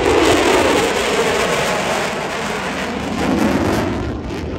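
F-16 Fighting Falcon's single jet engine: a loud rushing jet noise as the fighter passes overhead, its pitch dropping, then fading as it flies away.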